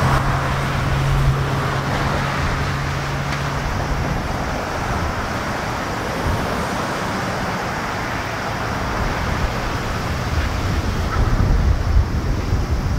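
Boeing 787-8 Dreamliner's twin turbofan engines running at takeoff thrust, a steady jet noise as the airliner rolls, lifts off and climbs away. The low rumble grows uneven near the end.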